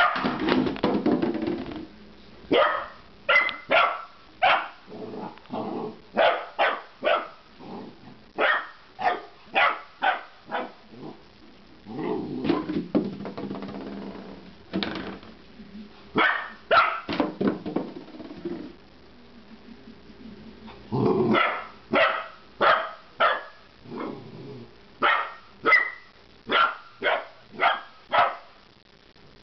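Golden retriever puppy barking repeatedly in short, sharp barks, in runs of several at a time with pauses between, with a few longer, lower sounds between runs. The puppy is barking at an unfamiliar plastic milk jug it is unsure of.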